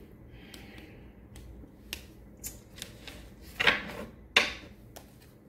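Tarot cards being slid and set down on a tabletop: a brief soft slide, then a series of light clicks and taps, with two louder slaps of cards near the end.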